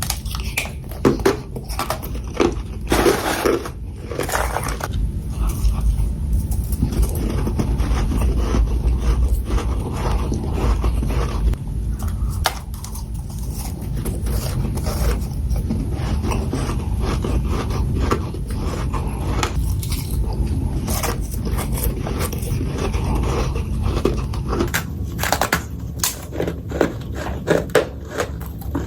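Freezer frost made from carbonated and filtered water, crunched and scraped as it is eaten. Irregular sharp crackling crunches run over a steady low rumble.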